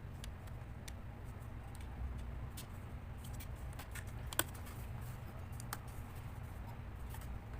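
Scattered light clicks and taps of small parts and tools being handled on a laptop, with one sharper click about four seconds in, over a steady low hum.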